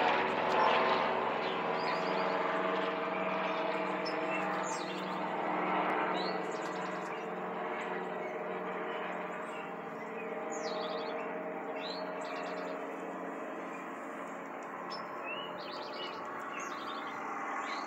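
Steady drone of an aircraft engine overhead, one even multi-toned hum that slowly grows quieter. Songbirds chirp over it.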